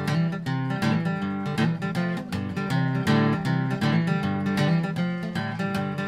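Background music: acoustic guitar being plucked and strummed in a steady rhythm.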